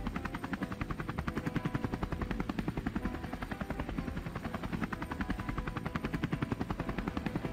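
Camera drone's propellers buzzing steadily with a rapid, even pulsing chop.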